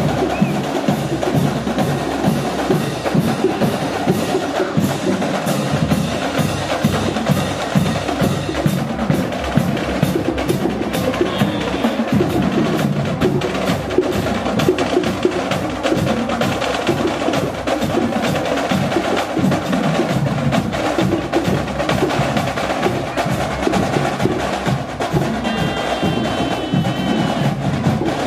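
School marching band playing, driven by a drumline of snare and bass drums beating a fast, steady rhythm, with wind instruments sounding over it.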